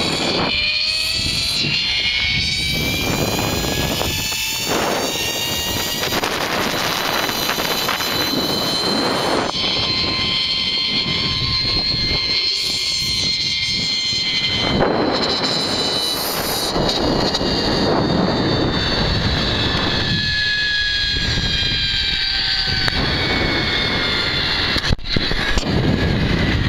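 Zipline trolley pulleys whining along the steel cable at speed, mixed with wind rushing over the microphone. The whine's pitch drifts and sinks slowly over the second half as the ride goes on, and there is a single sharp knock near the end.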